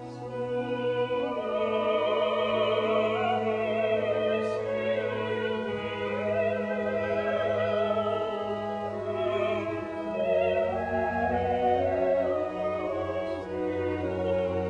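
Classical music: operatic singing with wavering, held notes over an orchestra.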